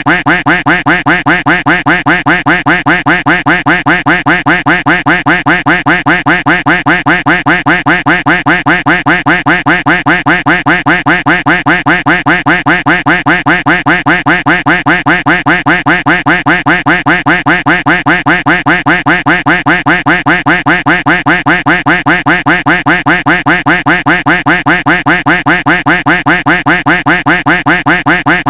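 Duck quack sound effect looped without a break, the same quack repeating several times a second at a perfectly even rate.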